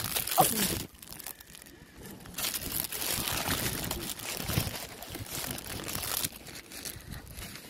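Close crinkling and rustling, loudest from about two and a half to six seconds in, after a short quieter lull.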